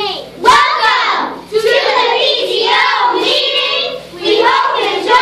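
A group of young girls chanting a cheer together in a sing-song rhythm.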